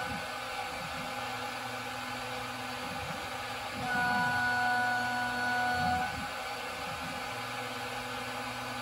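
Benchtop CNC mill's spindle running while a 3-flute, 45° helix end mill takes a deep (1/4 inch), narrow-stepover cut in aluminium. The cutting itself is quiet under the steady spindle hum, with low tones sliding up and down and a louder stretch about four seconds in. The steady, low-vibration sound is the sign of a cut whose force stays nearly constant, with one tooth entering as the other leaves.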